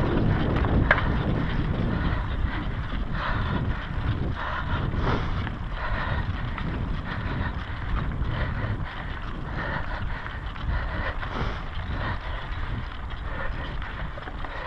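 Wind buffeting an action camera's microphone on a moving mountain bike, with the knobby tyres rolling over a dirt-and-gravel trail and small rattles and ticks from the bike. Loudest in the first couple of seconds, then a little quieter.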